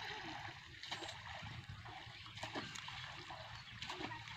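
A wet cast net being handled on grass: faint rustling with a few scattered small ticks and splashes.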